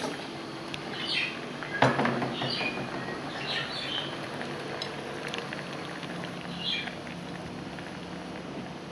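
A pot of chicken in coconut milk simmering on the stove, with a single utensil knock about two seconds in and a few short, high chirps scattered throughout.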